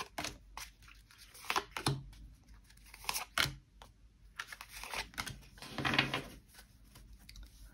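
Tarot cards being dealt by hand onto a table, each card snapping down in a short sharp click, several in the first half, with a longer rustle of cards sliding together about five seconds in.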